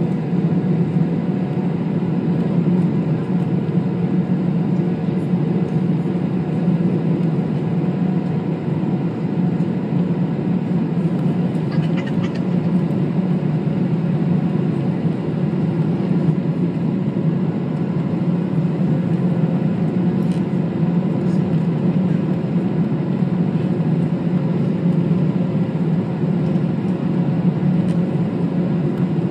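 Steady cabin roar of a Boeing 777-300ER on approach with flaps extended: airflow and GE90 engine noise heard from inside the cabin, a low even rumble with a faint steady hum over it.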